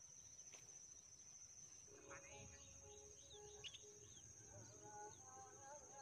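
Quiet grassland ambience: a steady high-pitched insect drone, with a few faint bird chirps.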